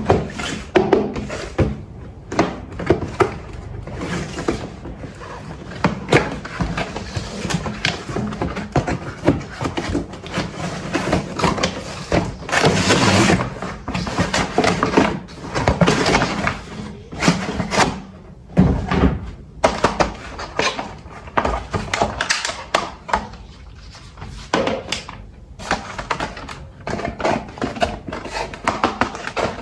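Packaging and toy parts being handled during an unboxing: an irregular run of knocks, thunks and clicks, with longer stretches of rustling about 12 and 16 seconds in.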